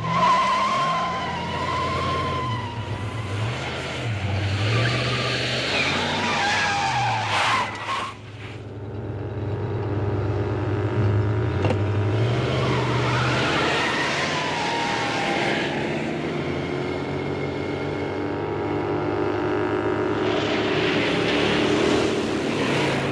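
Car-chase sound effects: engines running hard under load, with tyres squealing in long wavering screeches near the start and again about halfway. There is a sharp impact about eight seconds in.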